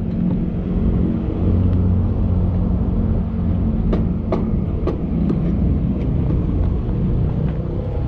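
Steady low engine rumble with a constant hum, and a few sharp knocks about four seconds in.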